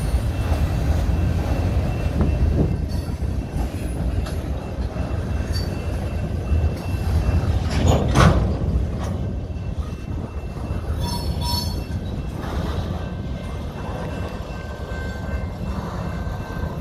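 Freight cars (covered cement hoppers, then a centerbeam flatcar loaded with lumber) rolling slowly past over a grade crossing: a steady rumble of steel wheels on rail, with one loud sharp knock about eight seconds in.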